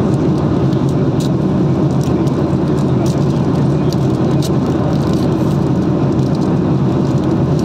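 Steady low road and engine rumble heard inside a moving car's cabin, with a few faint ticks over it.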